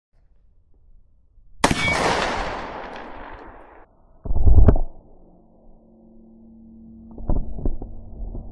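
A gunshot about two seconds in, its echo dying away for about two seconds before cutting off abruptly. A heavy thump follows, then a few sharp knocks near the end.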